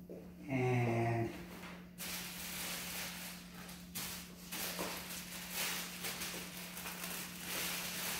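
Plastic bag crinkling and the folded hoop skirt's fabric rustling as they are handled together. It comes in about two seconds in as a continuous rustle with many small crackles.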